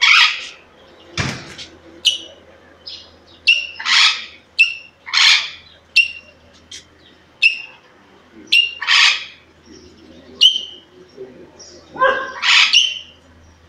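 Caged parrot calling: about five loud, harsh squawks a few seconds apart, with many short, sharp chirps between them.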